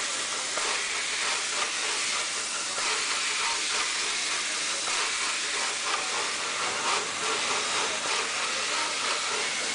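Steady machine hiss from an SMD pick-and-place machine running on a circuit-board assembly line.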